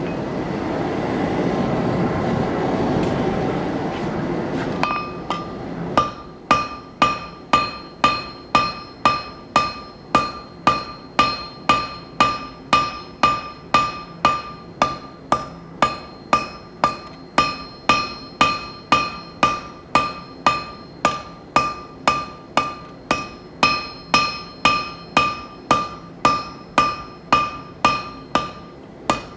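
Hand hammer striking hot steel on an anvil, an even rhythm of about two blows a second, each with a bright ringing tone, starting about five seconds in after a steady roar.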